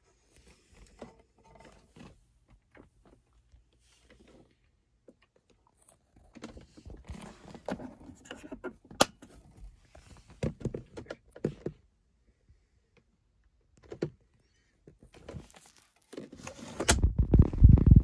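Handling noise from a handheld phone and hands on car interior trim: scattered light clicks and rustling, with a sharper click about nine seconds in. Near the end comes a loud, low, rough rumble of something rubbing right at the microphone.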